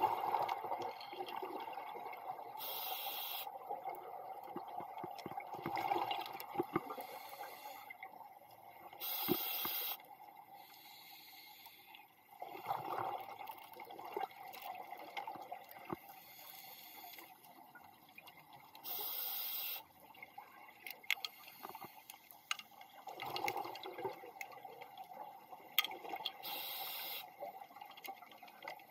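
Scuba diver breathing underwater through a regulator, four slow breaths: a short, even hiss on each inhale, followed some seconds later by a rush of bubbles on each exhale.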